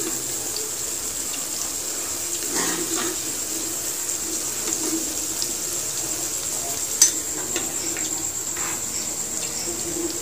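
Paneer cubes frying in a shallow layer of oil in a kadhai, a steady sizzle, with light clicks of a metal spoon against the pan and steel plate and one sharper clink about seven seconds in.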